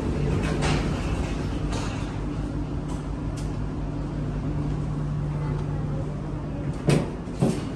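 Steady low mechanical hum of a ferry's onboard machinery and ventilation at its boarding entrance, its lowest tone dropping away about seven seconds in. Two sharp knocks come near the end.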